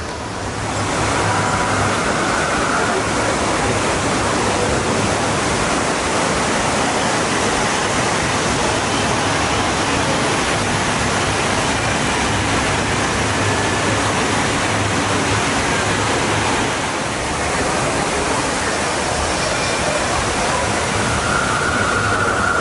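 Steady rush of water from a small waterfall spilling into a pond, swelling in within the first second and dipping briefly about three-quarters of the way through.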